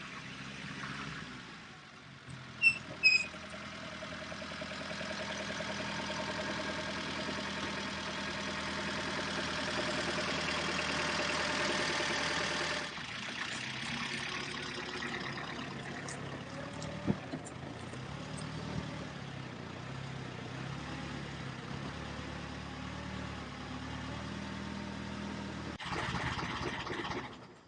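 1938 Austin Seven Ruby's small side-valve four-cylinder engine running, building steadily for about twelve seconds, then dropping suddenly and running on with a wavering pitch until it fades out at the end. Two short, sharp, high-pitched sounds come about three seconds in.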